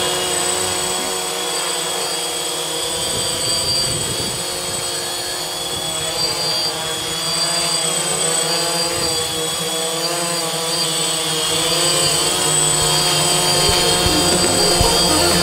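DJI Phantom quadcopter hovering, its four motors and propellers making a steady buzz with several whining tones. It grows a little louder in the last few seconds as the drone comes close.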